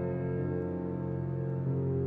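Slow ambient background music: soft sustained chords, with the notes shifting about half a second in and again shortly before the end.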